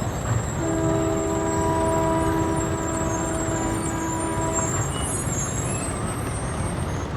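WDM 3A diesel locomotive's air horn sounding one long blast of about four seconds, a chord of several steady tones, starting about half a second in. A steady low rumble runs beneath it.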